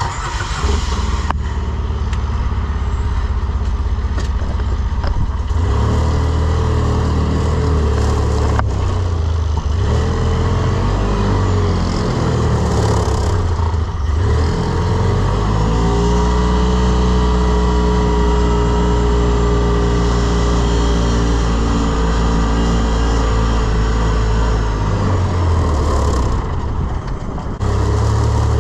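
Engine of the Ranger running as it is driven, its pitch rising and falling with speed, then holding steady for a long stretch past the middle before easing off near the end.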